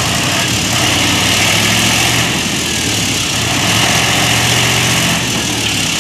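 Diesel engine of a container truck running steadily at low speed close by, with a continuous hiss and splash of flood water churned up around its wheels.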